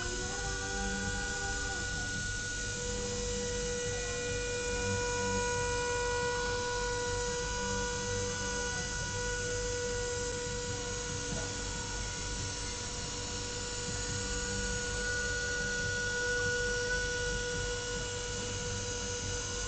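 CNC machine running while milling aluminium plate: a steady whine in several tones over a rough, uneven low rumble from the cut.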